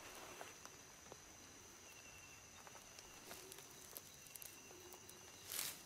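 Near-silent night ambience: faint rustling and ticking of a hand moving through grass while searching for earthworms, with one brief louder rustle near the end. A steady faint high-pitched tone lies underneath.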